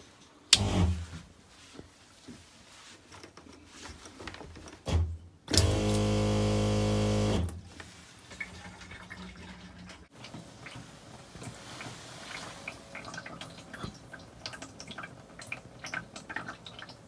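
Small electric water pump for a camper sink, fed from a water jug and switched by a push button: a brief kick about half a second in, then a steady buzz for about two seconds from about five and a half seconds in, cutting off sharply. Light drips and ticks follow.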